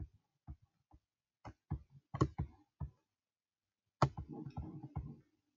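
Clicks of a computer mouse as code blocks are picked up and dropped on screen: about eight short, sharp clicks at an uneven pace over the first three seconds. Near the end comes about a second of softer, continuous noise.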